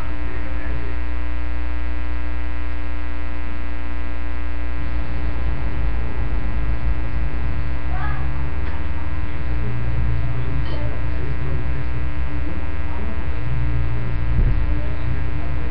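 Loud, steady electrical mains hum, a buzz with many even overtones that does not change.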